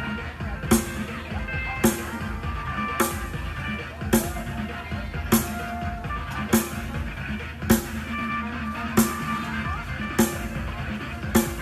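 Live band music through a large PA sound system during a sound check: a slow, even drum beat, one hit about every 1.2 seconds, with short held melody notes above it.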